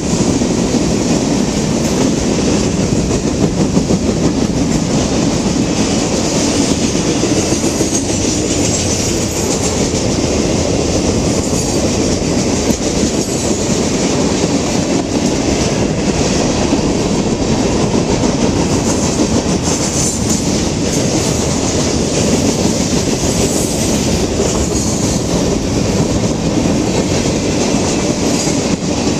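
Freight train's tank cars, boxcars and covered hoppers rolling past close by: a steady, loud noise of steel wheels running on the rails.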